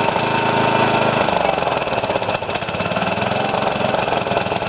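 Briggs & Stratton single-cylinder lawn mower engine running steadily after a rebuild with new piston rings and gaskets; about a second in its speed drops and then it runs on at the lower speed.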